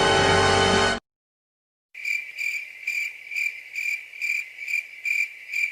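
Music cuts off about a second in; after a brief silence comes a cricket chorus, a high chirp repeating about two and a half times a second: the familiar crickets sound effect for an awkward silence.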